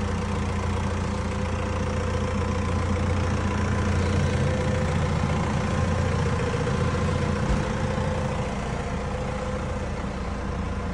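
Engine of the machine lifting the car shell, idling steadily with an even low hum.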